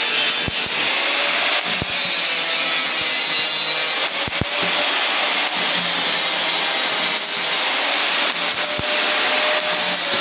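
Arc welding on steel: a steady, harsh crackling hiss with occasional sharp pops.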